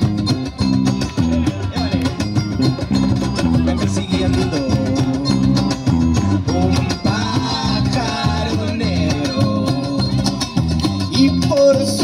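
Live acoustic band playing Latin-style music: strummed acoustic guitar over an electric bass line, with a cajón beat. A melody line comes in about seven seconds in.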